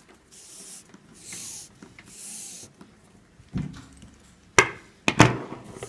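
Paracord being pulled by hand through a rope core, swishing in three short rubs, then a few sharp knocks near the end.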